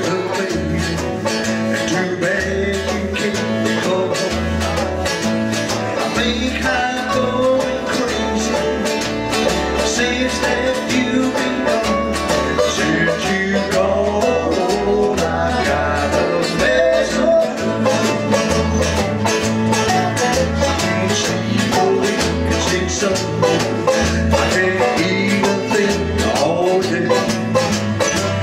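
Small acoustic string band playing a blues number: mandolin, acoustic guitar and electric guitar strumming together in a steady beat, with low notes moving along underneath.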